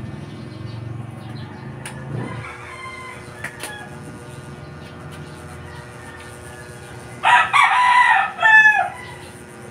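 A rooster crowing once about seven seconds in: a loud call of about a second and a half that breaks briefly before its last note.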